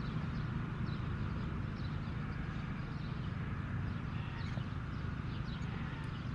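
Scattered short, high chirps from birds, several a second, over a steady low rumble.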